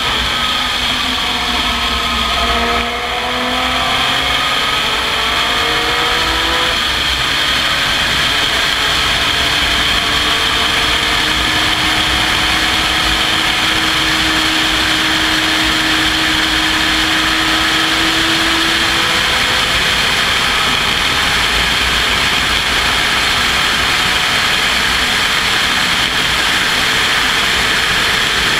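Onboard sound of an open-cockpit race car at speed: steady wind rush over the cockpit with the engine under it. The engine note falls for the first three seconds as the car slows for a corner, climbs until a shift about seven seconds in, then rises slowly through a long pull up the straight.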